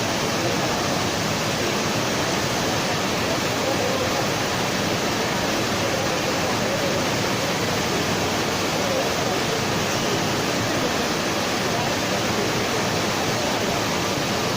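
Steady, even roar of blast furnace plant machinery, with no breaks or separate strokes.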